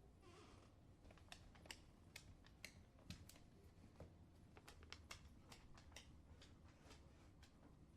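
A dog's claws clicking on a hardwood floor as it walks: quiet, irregular taps, about two or three a second, with a short soft hiss near the start.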